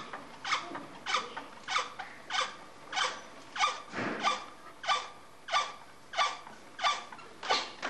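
Potter's wheel squeaking once each turn as a pot is thrown on it: a short squeak about every two-thirds of a second, very even.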